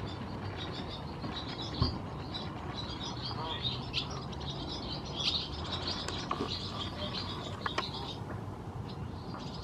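Birds chirping in quick, busy runs of short high notes over a steady low rumble, with a single thump about two seconds in.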